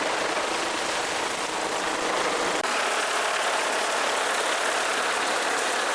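Helicopter hovering overhead: a steady, unbroken wash of engine and rotor noise.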